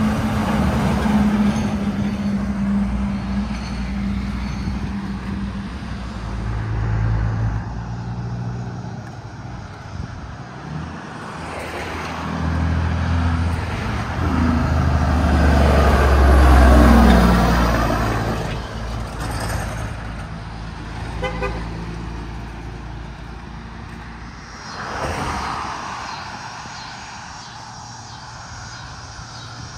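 Heavy diesel trucks driving past on a street: a dump truck's engine running as it moves off, then a semi's diesel passing close with its pitch falling, loudest about 16 seconds in, and a car swishing by near 25 seconds.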